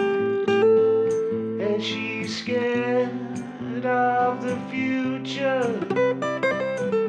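Acoustic guitar music: sustained chords under a melody line that bends and slides in pitch in places.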